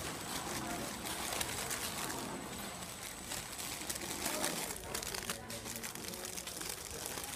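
Clear plastic pillow packs of cookies crinkling as they are handled, over the steady running noise of a cookie pillow-packing (flow-wrap) machine, with scattered light clicks.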